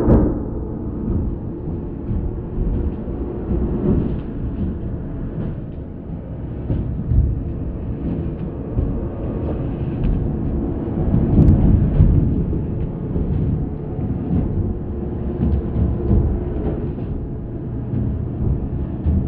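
Goat noises reworked in Audacity into a horror sound effect: a deep, continuous rumble with faint held tones and several louder swells.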